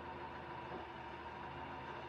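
Recycling truck's engine idling with a steady hum.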